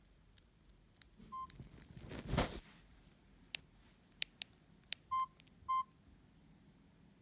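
Samsung GT-E1170 mobile phone being operated between ringtones: sharp keypad clicks and three short, single-pitch key beeps, two of them close together near the end. A brief rustle of handling a little over two seconds in.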